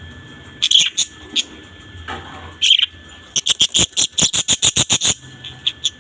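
Budgerigars chirping in short, sharp calls, with a fast run of clicking chirps, about eight a second, from about three and a half to five seconds in.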